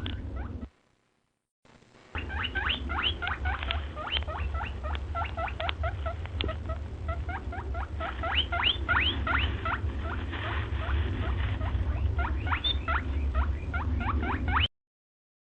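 Small animals squeaking: rapid, high, short upward-sliding squeaks, several a second, over a steady low hum. The squeaks stop briefly about a second in and cut off near the end.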